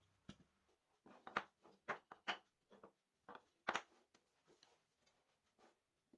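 Irregular light clicks and knocks, like wood or tools being handled at a workbench. The loudest come in a cluster about one to four seconds in.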